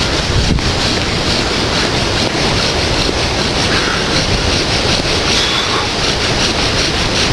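Steady rush of hurricane wind and rain buffeting the microphone. Underneath it is a fast, even rhythm of bow-drill strokes, the spindle being sawed back and forth on the hearth board to raise an ember.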